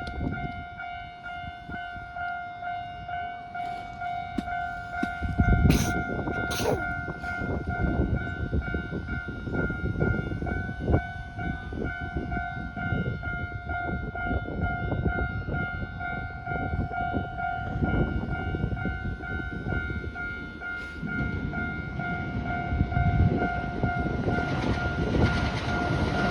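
Japanese level-crossing alarm ringing its steady, repeating two-tone 'kan-kan' bell while a Keikyu train runs through the crossing with a continuous rumble and clatter.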